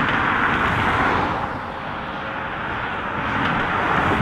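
Twin-engine Airbus A330-200 jet on final approach, a steady rushing jet noise over a low rumble, swelling again near the end as the airliner comes closer.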